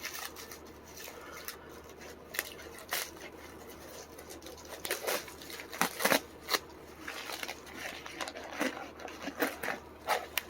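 Plastic package of slab bacon being cut open and handled: a scattered run of sharp snips and plastic crinkles, busiest about halfway through and again near the end.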